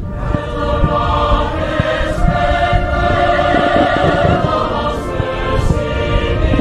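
Choral music: a choir holding long sustained chords with orchestral backing.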